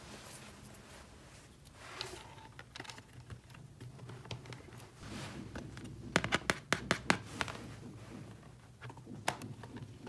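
Small hard plastic pieces handled by hand, clicking and tapping lightly, with a quick run of about eight clicks a little past halfway and one more near the end.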